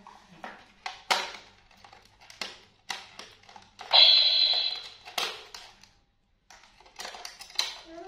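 Irregular percussive taps and clicks, with one bright ringing crash about four seconds in that fades over about a second, and a quick run of clicks near the end.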